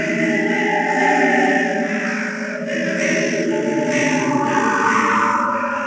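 Eerie music of sustained, choir-like voices holding chords, with higher notes joining about halfway through.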